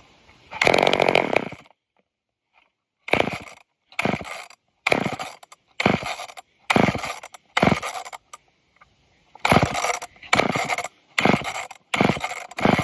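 Old two-stroke chainsaw being pull-started over and over, a short burst of sound with each pull about once a second, with a brief pause partway. It is hard to start and won't keep running, which the owner puts down to the saw struggling to pull fuel through a dirty filter.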